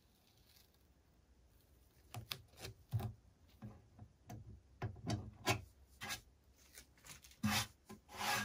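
Hands pulling masking tape and rubbing a paper template flat on a painted wooden chest lid: short, irregular rubs and soft knocks, starting about two seconds in and loudest near the end.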